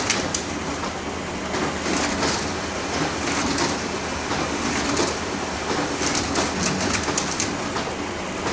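Photocopier running: a steady mechanical hum and whir, with a cluster of clicks and swishes recurring every second or two.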